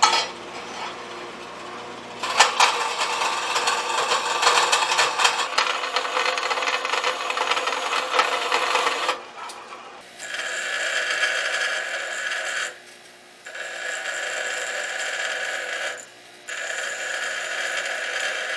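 A vertical band saw cutting a small steel part, a steady noisy cut lasting several seconds. After a break, a bench grinder grinds steel in three passes of a few seconds each, with short gaps where the work is lifted off the wheel.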